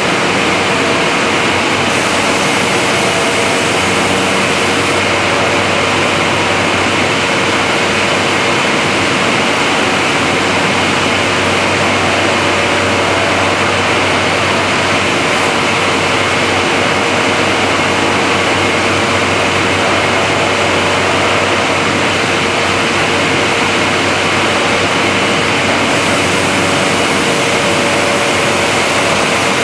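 SMM101 CNC corner-joint cutting machine running with a loud, steady noise and a faint constant hum that stay unchanged throughout.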